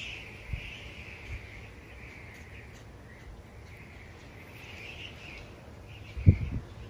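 A continuous high-pitched chorus of small animals calling, such as insects or birds, swelling and fading. There are a couple of soft low thumps early on and a louder low bump a little after six seconds.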